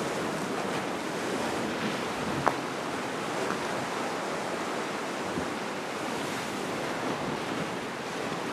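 Sea surf washing and breaking against the rocks at the foot of a cliff, a steady rush with wind buffeting the microphone. A single sharp click about two and a half seconds in.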